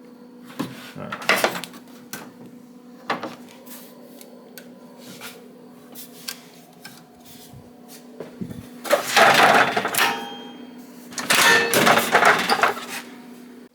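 A roll of vinyl being loaded into a wide-format printer: scattered clicks and knocks, then two long, loud stretches of sliding, rustling noise near the end, over a steady low hum.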